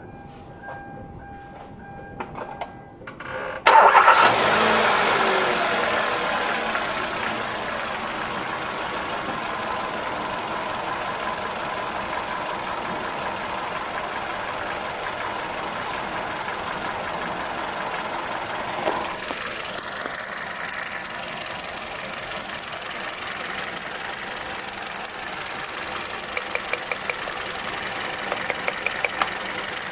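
Car engine starts about four seconds in and settles into a steady idle. It is running on two newly replaced ignition coil packs, and the owner says the idle is now smooth, without the shaking misfire it had before. About two-thirds of the way through the sound gets louder and stays louder.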